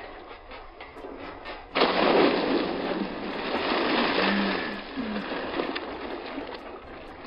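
A person plunging into an inflatable paddling pool: a sudden loud splash just under two seconds in, then water churning and sloshing for a few seconds, slowly fading.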